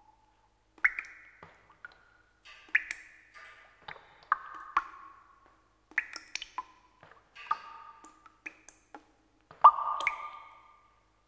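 Sparse music of single high struck notes, each ringing briefly and dying away, spaced about half a second to a second apart, with the loudest note near the end.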